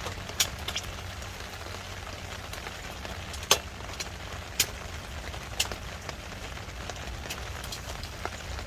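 Steady rain hiss with scattered sharp drips, the loudest about three and a half seconds in and again about a second later.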